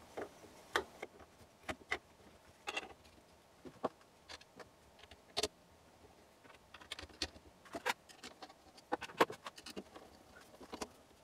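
Irregular light clicks and taps of a 3D-printed plastic print-head carriage and its linear bearings being handled and fitted onto steel guide rods, with a quicker run of clicks about two-thirds of the way through.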